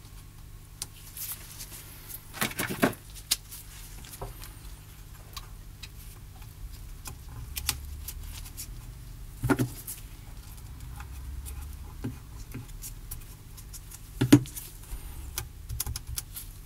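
Light clicks, taps and clatter of small parts and tools being handled during an electronics repair, with a few louder knocks, a pair near three seconds in, one near ten seconds and one near fourteen.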